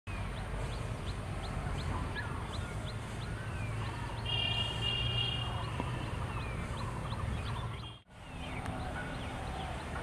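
Several birds chirping and calling over a low steady rumble, with short rising and falling notes, a quick regular ticking call, and one longer whistled call in the middle. The sound cuts out for a moment about eight seconds in.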